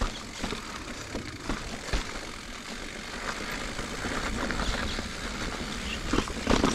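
2021 Giant Reign full-suspension mountain bike rolling over dirt and rock trail: a steady low rumble of tyres and wind with scattered clicks and rattles from the bike.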